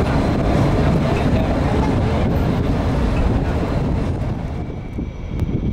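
Street traffic noise: a steady rumble of passing vehicles that thins and drops a little about five seconds in.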